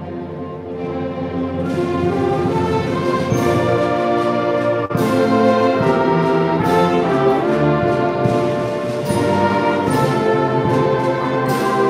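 Junior high school orchestra and symphonic band playing together, with clarinets, violins and brass, brass prominent. The music comes in suddenly and swells to full volume over the first two seconds.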